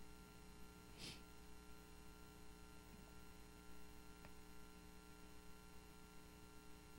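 Near silence with a faint steady electrical mains hum.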